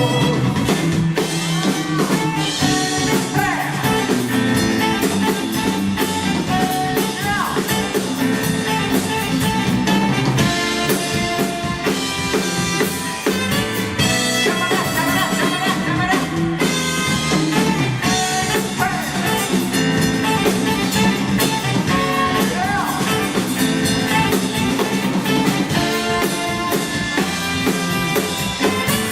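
Live band playing an instrumental passage, with electric guitar over a drum kit.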